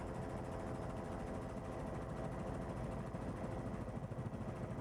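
Helicopter engine and rotors running in flight, heard from aboard: a steady drone with a fast, low rotor beat underneath.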